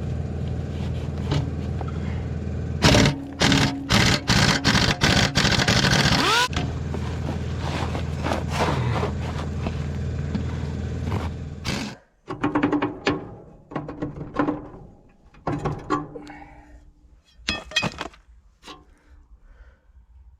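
An engine running steadily, with a run of loud knocks a few seconds in, then the engine stops about twelve seconds in and scattered knocks and clunks of work on a plow follow.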